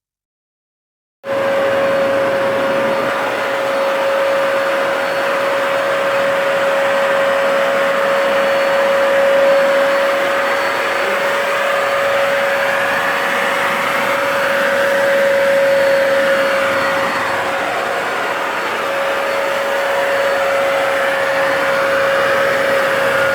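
Wash-and-dry vacuum cleaner running steadily, its motor giving a constant mid-pitched whine over a loud rush of air. It starts suddenly about a second in.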